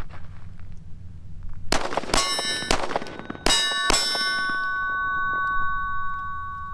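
Five gunshots in quick succession, starting about two seconds in, each answered by the clang of a steel target being hit. The target keeps ringing with a steady metallic tone after the last shot.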